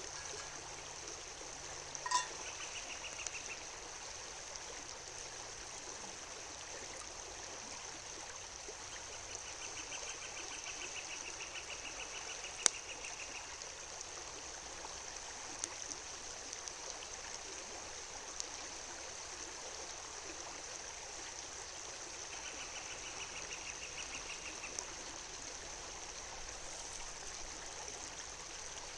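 River water running steadily. A high, rapid trill sounds three times over it.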